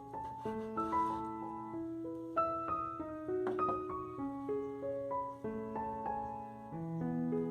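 Background music: a gentle piano melody of single held notes.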